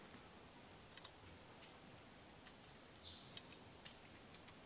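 Near silence: faint outdoor background with a few soft clicks.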